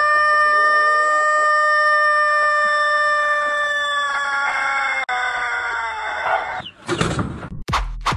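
A rooster holding one very long crow note, steady in pitch, that wavers and sinks before breaking off about six and a half seconds in. A short rushing noise and a few clicks follow near the end.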